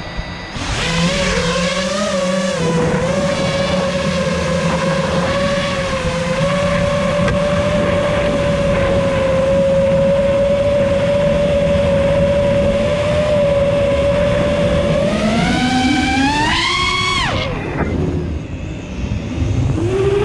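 FPV quadcopter's brushless motors and propellers whining, spinning up about half a second in and then holding a steady pitch. Near the end the whine climbs as the throttle goes up, drops away sharply as it is cut, then climbs again.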